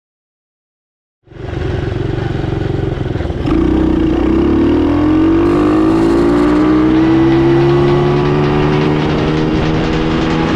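Near silence for about the first second, then a sport quad bike's engine running. A little over three seconds in, it gets louder and rises in pitch as the quad accelerates, then holds steady at speed.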